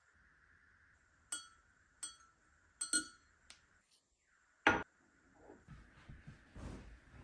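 Kitchenware clinking while tea is made: about five sharp knocks of metal or glass with a short bright ring, the loudest a little before five seconds in. A low, uneven shuffling follows near the end.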